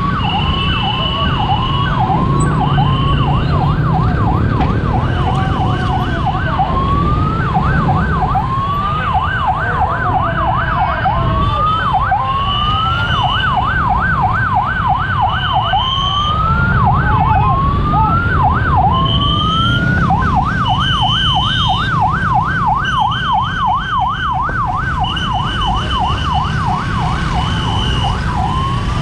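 Ambulance siren switching between slow rising whoops and runs of fast warbling yelp. Over it, a level-crossing alarm beeps a steady high tone about once a second, the two sounding at the same time, with traffic rumble underneath.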